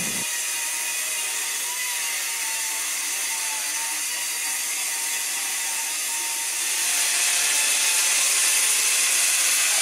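Corded handheld electric saw cutting through 1/16-inch sheet steel along a straight line: a steady motor whine over a harsh, high grinding of blade on metal, getting a little louder about seven seconds in.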